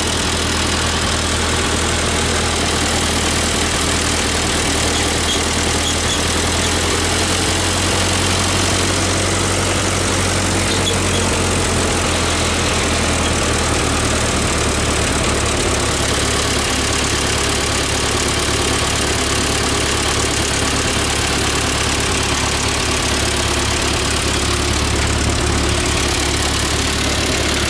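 1948 Ford 8N tractor's four-cylinder flathead engine idling steadily, running smoothly on its freshly cleaned carburetor. The low hum grows a little stronger about halfway through.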